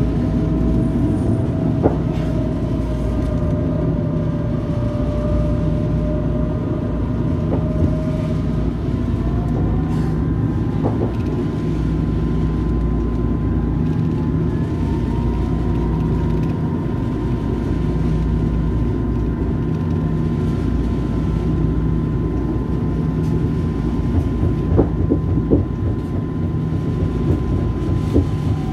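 Eurotram tram running on the line: a steady low rumble of wheels on rail, with an electric motor whine that slowly falls and then rises in pitch, and a few sharp clicks.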